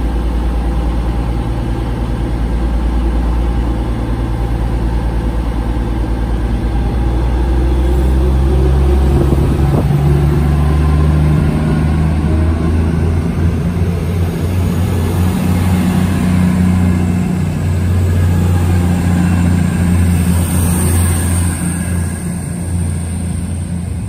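Diesel High Speed Train (HST) running slowly past the platform: a loud steady low engine drone that steps up in pitch about ten seconds in, with train running noise.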